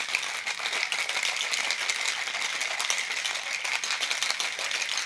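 A dense, steady rattle of many small hard clicks, running without a beat and beginning to fade near the end.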